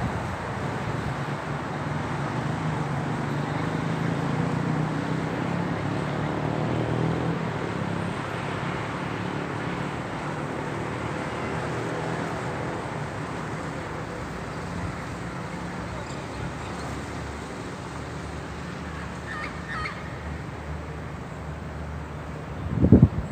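Road traffic noise: a steady rumble of vehicle engines and tyres, heaviest over the first half, with a few brief high calls about twenty seconds in and a loud sudden sound right at the end.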